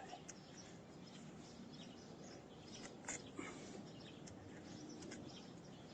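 Near silence: faint background hum with a few small, scattered clicks and faint chirps.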